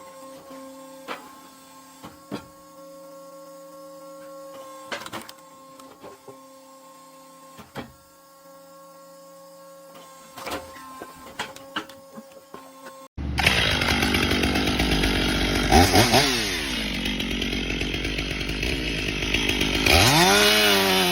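A steady electric motor hum with scattered sharp knocks and clicks, then, about thirteen seconds in, an abrupt cut to a chainsaw running loudly and revving up and down twice.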